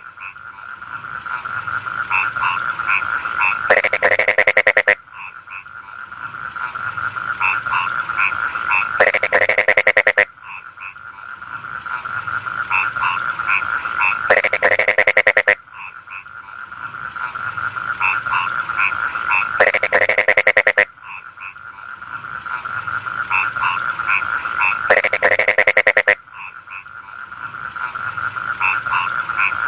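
Frogs calling in a rice field: a steady chorus, with short pulsed calls over it and a loud burst of rapid croaks about every five seconds.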